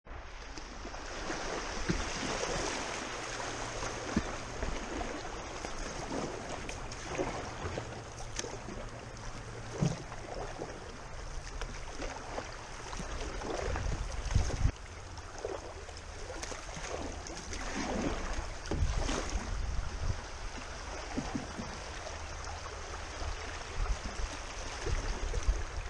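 Shallow river current rippling and rushing around a moving canoe, with paddle strokes dipping and splashing at irregular intervals and an occasional sharper knock.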